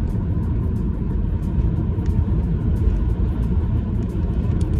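Steady low road rumble of a car being driven, heard from inside the cabin, with a faint steady whine.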